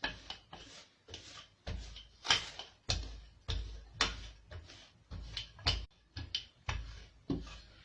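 Dough being rolled out on a marble countertop with a rolling pin: a series of short thuds and rolling, scraping strokes, about two a second.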